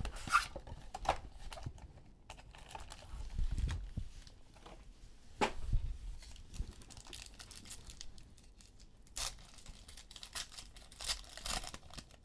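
Plastic wrapping of a trading-card box and packs being torn open and crinkled, in several short rustling bursts with light clicks and taps of handling between them.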